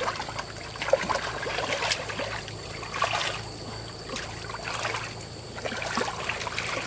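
Water splashing in shallow water, a burst every second or two, over a steady low hum.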